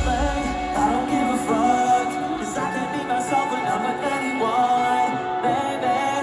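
Live metalcore band in an arena playing a pared-back final refrain: the heavy drums and bass drop out at the start, leaving a lighter backing under a sung melody line.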